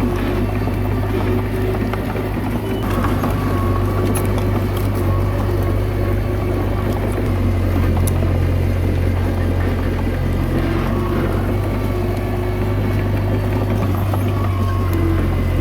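Komatsu D21A mini bulldozer's diesel engine running steadily under work, with a low drone that shifts slightly partway through and faint squeaks and clicks over it.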